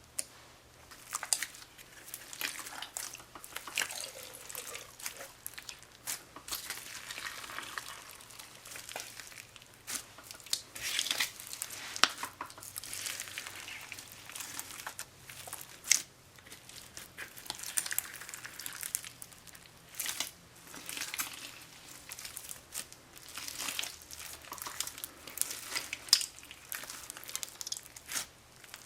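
Old slime being squeezed, stretched and pressed by hand, giving irregular sticky crackles, pops and wet squelches.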